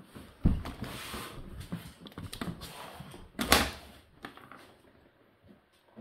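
Whirlpool dishwasher door unlatched with a click and pulled down open after the wash cycle has ended: a loud knock about half a second in, rustling and rattling for a couple of seconds, then a second loud knock about three and a half seconds in, followed by a few lighter knocks.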